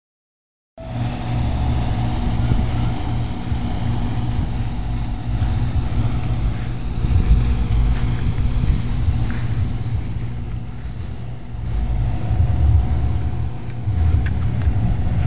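Wind rumbling and buffeting on a phone's microphone, rising and falling in gusts, over a steady low electrical hum.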